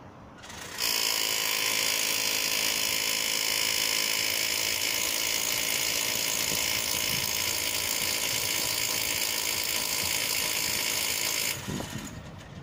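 Electric drill boring a hole through a masonry wall. It spins up about half a second in, runs steadily with a high whine and hiss, and cuts off about a second before the end.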